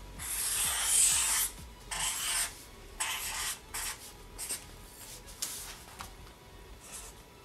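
Felt-tip marker drawing on paper: one long scratchy stroke first, the loudest, then a series of shorter strokes about a second apart that grow fainter.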